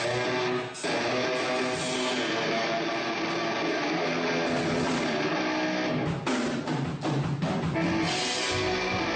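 A metalcore band's electric guitars and drum kit playing loud, dense rock through a live PA, with short breaks about a second in and around six seconds in.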